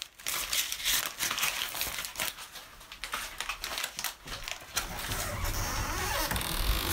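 A wad of paper banknotes being crumpled and rustled in the hands: a quick run of sharp crinkles. About five seconds in this gives way to a steadier rustle with a low rumble of movement.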